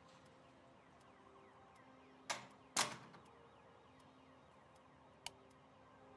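A door being handled: two sharp knocks about half a second apart, the second louder and heavier, then a light switch clicking once near the end.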